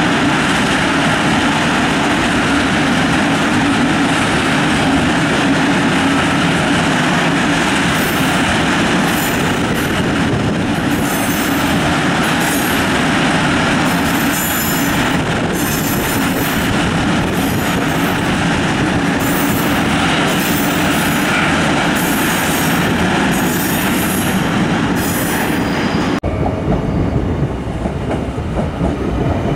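Freight train of covered grain hopper wagons rolling past: a steady rumble and clatter of wheels on the rails, with repeated bursts of high wheel squeal from about a third of the way in. Near the end the sound cuts abruptly to a lower, quieter rumble of another train.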